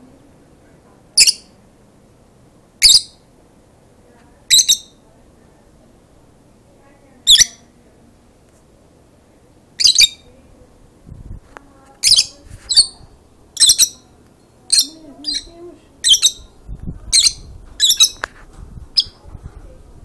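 Rosy-faced lovebirds giving loud, short, shrill chirps one at a time. The first few come a couple of seconds apart, then they come more often, about one a second, in the second half.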